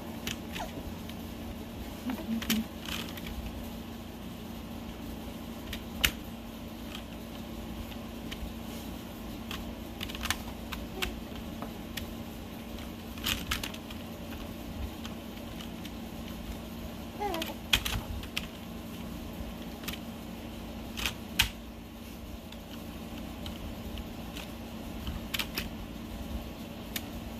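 Keys of a Corsair K95 mechanical keyboard clacking as a baby presses and pats at them: single clicks and short clusters at irregular moments every few seconds, over a steady low hum.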